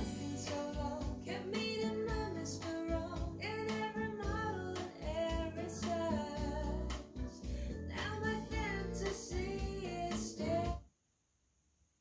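A pop song with a singer, played through Revel PerformaBE M126BE bookshelf speakers (beryllium tweeter, ceramic woofer) in a small room, cuts off suddenly about eleven seconds in, leaving near silence.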